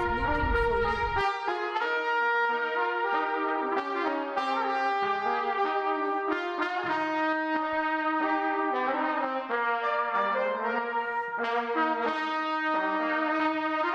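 A small brass ensemble led by trumpets plays held notes together in harmony, changing chord every second or so. A low rumble under the music stops about a second in.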